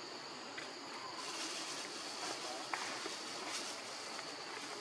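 Forest ambience: a steady high-pitched insect drone, with a louder high hiss joining about a second in and easing off near the end, and a few faint clicks.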